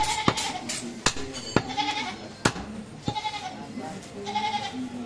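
A heavy butcher's knife chopping goat meat on a wooden log chopping block, with about five sharp chops in the first half. Goats bleat repeatedly alongside, in short wavering calls.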